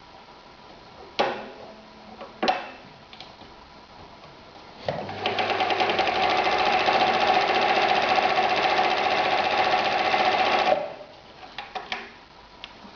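Husqvarna 2760 sewing machine stitching through leather at a steady speed for about six seconds, starting a little before halfway and stopping abruptly. Two sharp clicks come before it starts and a few lighter clicks after it stops.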